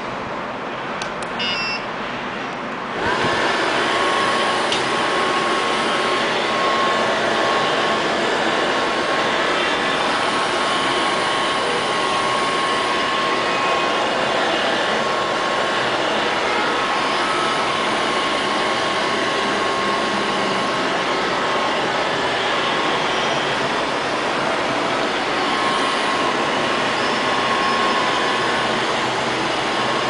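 LL-302 robot vacuum cleaner beeping briefly as its button is pressed. About three seconds in, its suction motor starts and runs steadily: a loud rush of air with a thin, steady whine.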